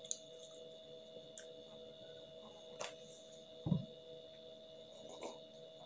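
Quiet eating and drinking at a table: a few faint small clicks and one soft low thump about two-thirds through, over a steady high-pitched electrical whine.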